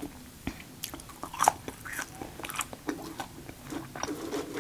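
Close-miked chewing and biting: irregular wet clicks, smacks and crackles of a mouthful of food, with one sharper crunch about a second and a half in.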